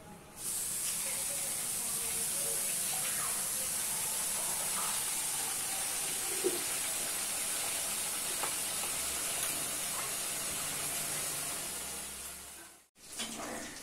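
Battered chicken pieces sizzling in hot deep-frying oil in an iron kadai as a new batch is dropped in: a steady high hiss that starts suddenly about half a second in and fades near the end.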